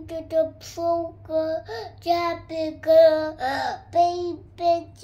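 A small boy singing in a sing-song voice, short syllables held on a few steady notes.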